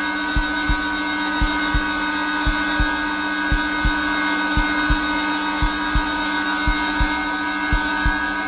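Zelmer vacuum cleaner running steadily at its lowest power setting, a constant motor whine and airflow hiss. Under it a heartbeat thumps in lub-dub pairs about once a second.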